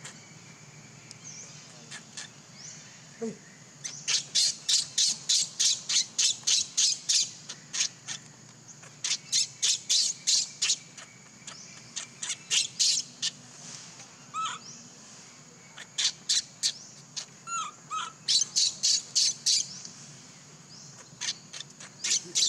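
Rapid runs of short, high-pitched squeaking calls, about five a second, in bursts of a few seconds with short pauses between them. A couple of lower, falling squeaks come near the middle.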